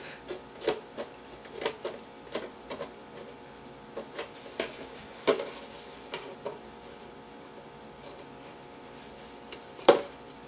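Scissors snipping through the plastic of a milk jug: a string of sharp, irregular cuts with short pauses, then a quiet stretch before one loud snip near the end.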